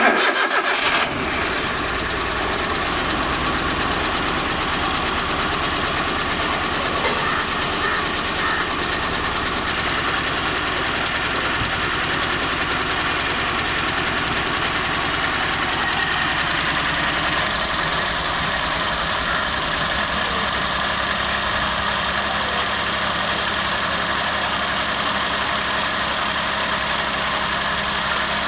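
Maruti 800 MPFI's 796 cc three-cylinder petrol engine, louder for about the first second and then idling steadily. It runs with a failed head gasket that is pushing compression into the cooling system.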